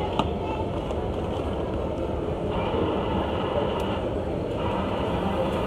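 Self-service automatic coffee machine running steadily as it dispenses milk foam into a cup. Its sound changes tone for about two seconds around the middle.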